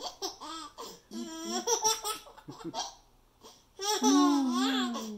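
Baby laughing in short bursts, then a longer, louder laugh about four seconds in that falls in pitch.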